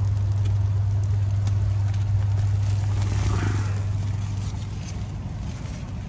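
Steady low hum of the running ducted air-conditioning system in the roof space, with light rustling and ticks as cables are handled.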